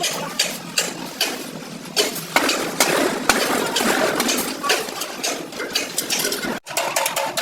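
Irregular metallic clanks and taps, several a second, over a steady machine hum. The sound breaks off abruptly for an instant near the end and resumes.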